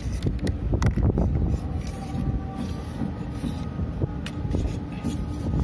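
Hands handling a carbon ultralight spinning rod, with a few sharp clicks and taps in the first second or so. Under them runs a steady low rumble.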